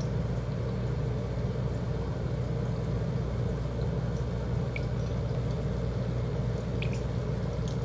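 Hamburger patties sizzling in a frying pan over a steady low hum, with a few faint clicks as a metal measuring spoon touches a stainless bowl while soy sauce and mirin are measured in.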